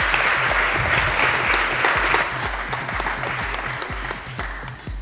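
Audience applauding over background music with a steady low beat; the applause thins out near the end.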